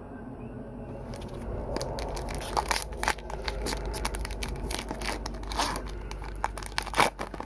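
Shiny foil wrapper of a Pokémon TCG booster pack being torn open and pulled apart by hand: sharp crinkling and ripping crackles that start about a second in and are loudest near the end.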